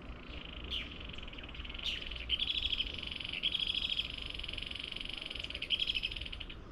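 An animal's rapid, high-pitched pulsing trill, held for about four seconds and broken briefly twice, preceded by two short chirps.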